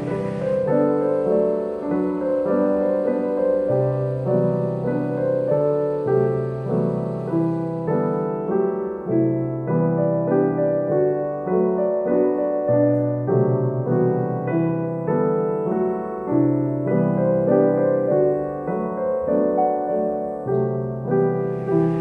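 Background piano music, a run of sustained chords and melody notes.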